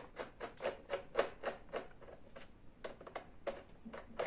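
A small screwdriver turning a screw in the plastic back cover of a Lenovo G500 laptop: a run of light clicks and ticks, about four a second, which thins to a few scattered clicks after about two seconds.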